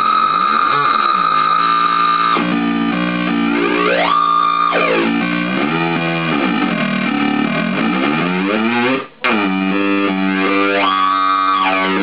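Joystick-controlled synthesizer playing a dense, buzzy drone of stacked tones, with its pitch sweeping up and down in repeated glides. The sound cuts out for a moment about nine seconds in, then comes back.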